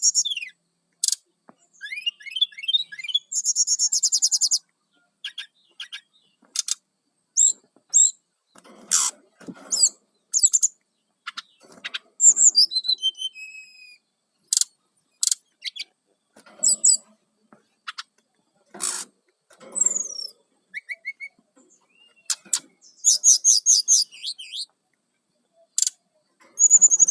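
Brown-chested jungle flycatcher singing a varied series of short, high phrases with brief pauses between them: quick trills, clear notes, and a long falling glide about halfway through.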